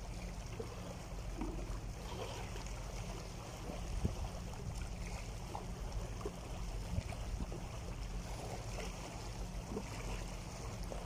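Small sea waves lapping and splashing over rocks, with a low steady rumble underneath.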